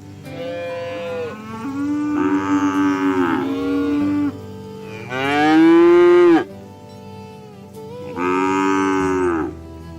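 Cattle mooing: four long, drawn-out moos one after another, the third the loudest.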